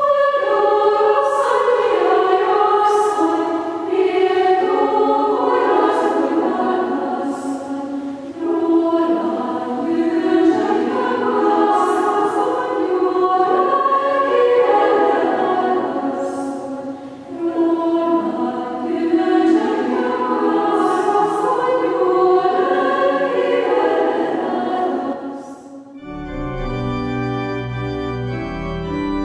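Choir singing, many voices moving together in sustained chords. Near the end it cuts suddenly to organ music: steady held chords over a deep bass.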